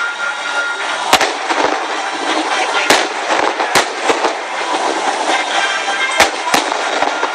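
Japanese aerial firework shells bursting overhead in a display, giving several sharp bangs a second or more apart over a continuous background din.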